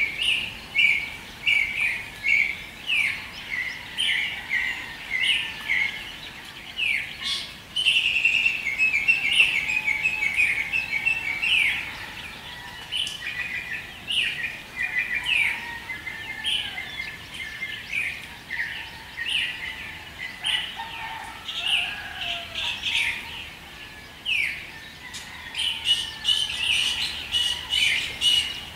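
Dawn chorus of many small birds chirping and calling over one another, with a stretch of rapid trilling about eight to eleven seconds in.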